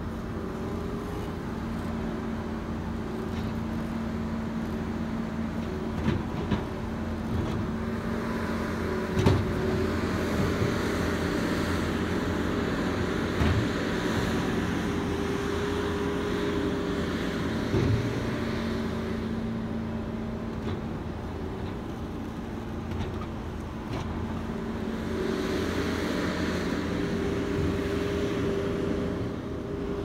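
Case SV300 skid steer's diesel engine running steadily while it pushes snow with a box pusher. Its noise grows louder twice as the machine works, with a few sharp knocks along the way.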